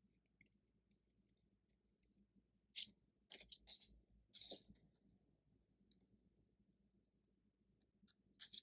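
Card stock being cut and handled: a few short, crisp snips and rustles in a mostly quiet room, grouped about three seconds in and again near the end.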